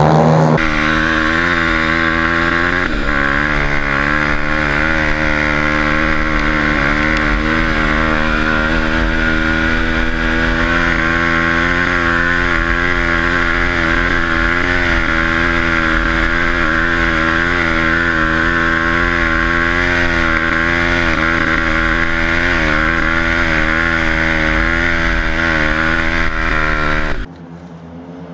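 Dirt bike engine running hard at steady high revs, heard from a camera mounted on the bike, its pitch wavering slightly with the throttle. It cuts off abruptly near the end, leaving a much quieter background.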